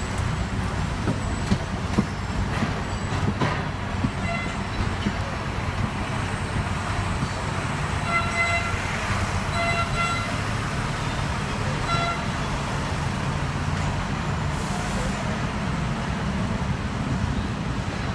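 Hong Kong double-decker tram running along its tracks, heard from the upper deck: a steady low rumble of motor and wheels on rail. A few short beeping tones sound about 4, 8, 10 and 12 seconds in.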